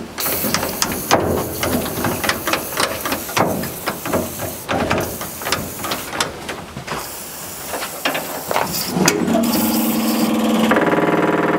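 Metal clicks and clanks, then for the last three seconds or so a steady, strained electric buzz as the starter is hit on the 1940s Chevrolet truck's gas straight-six. The engine turns only about a quarter turn, a sign that it is stiff from long storage.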